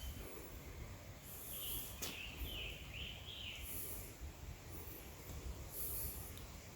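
Quiet woodland ambience with a low wind rumble. A bird gives a few short chirps between about one and a half and three and a half seconds in, and soft high hissing bursts come every couple of seconds.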